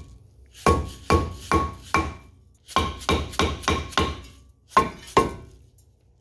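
Dead blow hammer striking a rusted-on front brake rotor to knock it loose from the hub. About a dozen quick blows come in three runs, each with a short metallic ring from the rotor.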